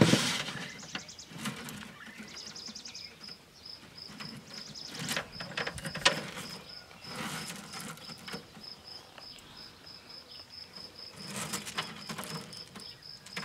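Hands slide plastic food-dehydrator trays and rustle through dried cherries on a mesh tray: a knock at the start, then scattered clicks, scrapes and rustles. Behind them an insect chirps in short, even, high-pitched pulses, about four a second, from about two seconds in.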